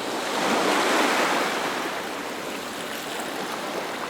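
Rushing water: a steady noisy wash that swells about a second in and then eases.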